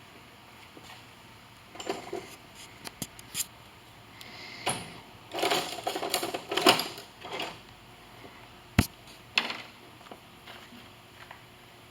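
Irregular metallic clicks, taps and clatter of hand tools and parts being worked on a lathe's gear selector shaft, with a busier run of clatter in the middle and one sharp click a little later.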